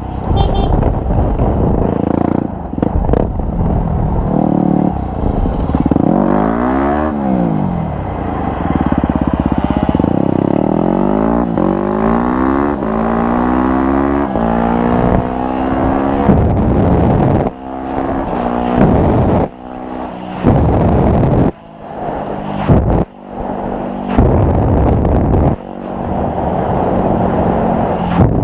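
Dirt bike engines revving and accelerating, the pitch climbing again and again, with abrupt jumps in level as short clips cut from one to the next.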